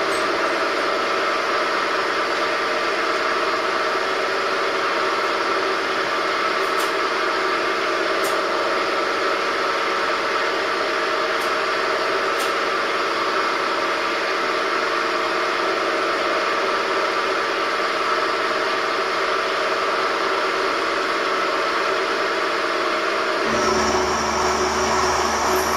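Benchtop milling machine running steadily, its end mill cutting metal, with a steady motor and spindle whine over the cutting noise.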